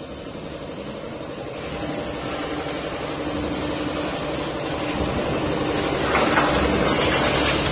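Hydraulic three-ram metal baler running, its pump and rams working with a steady mechanical hum that grows gradually louder.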